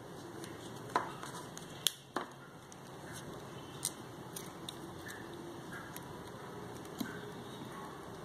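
Sparse small clicks and taps of tools and tiny parts being handled while a compact camera's lens unit is taken apart: a few sharp ticks, about five in all, over a steady background hiss.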